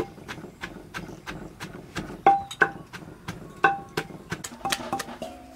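Wooden pestle pounding chilies, shallots and garlic in a large clay mortar, about four strikes a second. A few harder strikes partway through give a brief ringing note from the clay.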